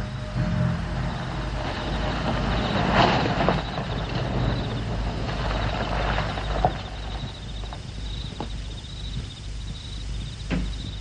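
A 1960s police sedan's engine running as it drives up and pulls to a stop, with tyre noise that fades after about seven seconds. Crickets chirp faintly and steadily, and there is one sharp click near the end.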